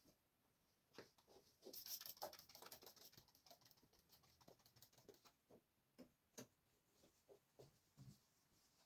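Faint, scattered light taps and clicks of small household objects being handled, with a short stretch of rustling and rapid clicking about two seconds in.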